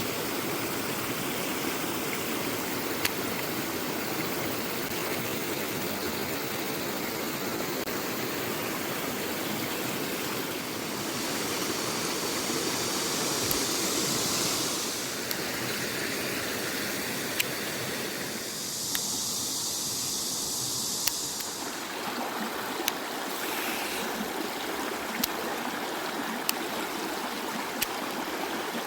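Mountain stream running full after rain, a steady rush of water. Sharp single clicks come at irregular moments over it, and the water hiss swells twice, about eleven and nineteen seconds in.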